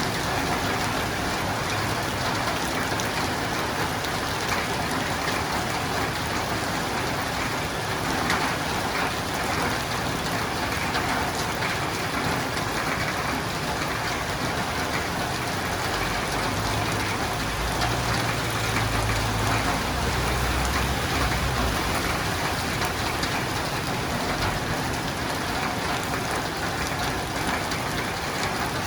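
Steady rain falling on a roof and windows, an even hiss throughout. A low rumble swells and fades about two thirds of the way through.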